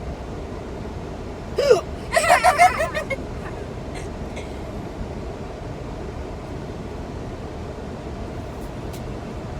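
A person hiccups once, a short sharp vocal catch falling in pitch, about a second and a half in. Right after it comes a brief pulsing, breathy vocal sound lasting under a second, over steady background noise.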